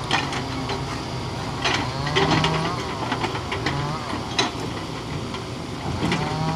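Kobelco hydraulic excavator's diesel engine running under load, with a whine that rises and falls in pitch three times as the grapple arm works, and a few sharp knocks from the logs being handled.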